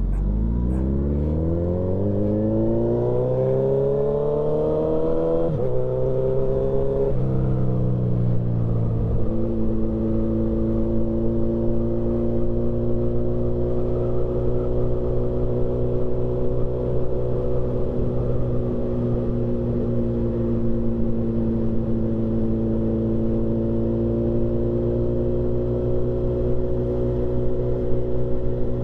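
Motorcycle engine pulling away and accelerating, its pitch climbing and dropping back at two gear changes in the first seven seconds. It then settles into a steady cruise at constant revs.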